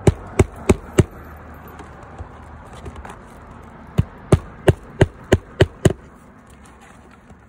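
Hammer driving nails through the edge of a lead pipe-jack flashing on a shingle roof: four quick strikes, a pause of about three seconds, then seven more strikes at about three a second.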